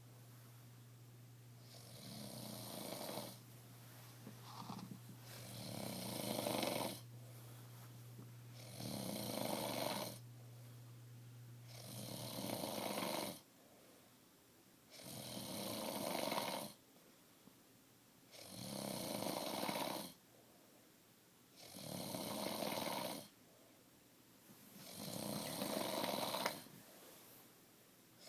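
A sleeping man snoring heavily, about eight long snores in a steady rhythm, one every three seconds or so. A low steady hum runs underneath and stops about halfway through.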